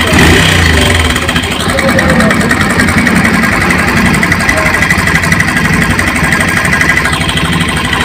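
Bajaj Pulsar 150's single-cylinder DTS-i engine idling with a jangling metallic rattle, which the mechanic puts down to a slack timing chain.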